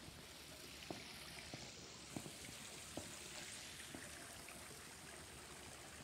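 Faint, steady splashing of water from a rock waterfall spilling into a swimming pool. A few soft footsteps on concrete come about once a second in the first four seconds.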